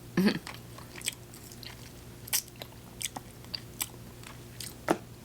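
A person chewing chicken close to the microphone: irregular short wet mouth clicks and smacks, a few louder than the rest.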